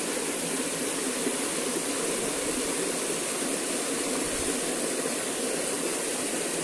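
Steady rush of stream water spilling over rocks into a pool.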